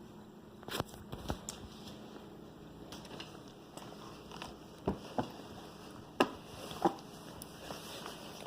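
Scattered soft clicks and taps, about eight of them, with small wet mouth sounds, from a baby being spoon-fed.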